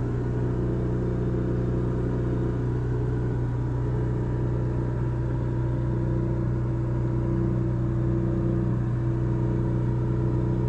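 A steady mechanical hum with several held tones and no change in level, as from a running motor or engine.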